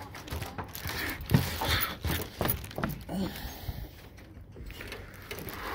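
Footsteps and irregular knocks and clicks on a suspended canopy walkway's decking, loudest about a second in and dying away after three seconds or so.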